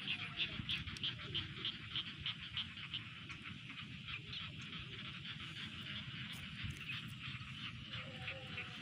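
Frogs calling: a rapid train of short pulsed calls, about four a second, loudest in the first few seconds and fading after.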